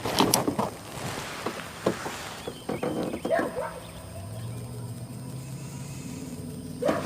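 Knocks and handling clatter in a small fishing boat, settling after about two and a half seconds into a steady low motor hum with a few faint clicks.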